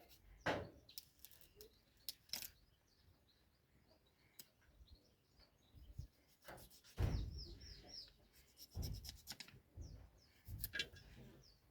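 Knife cutting through a chicken carcass: irregular clicks, scrapes and a few heavier knocks as the pieces are worked apart. Small birds chirp briefly in the background, once in the middle and again near the end.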